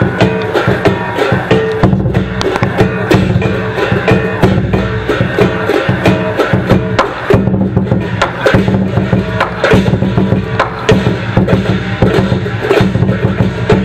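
Lion dance percussion: a large Chinese drum beaten in an unbroken run of strokes, with cymbals clashing over it.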